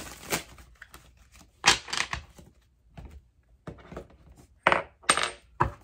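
A tarot deck being handled and shuffled: a string of irregular sharp card clacks and slaps, a few close together around the middle and more near the end.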